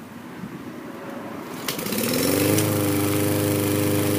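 Walk-behind gas lawn mower pull-started: the engine catches about two seconds in, rises in pitch as it comes up to speed, then runs steadily.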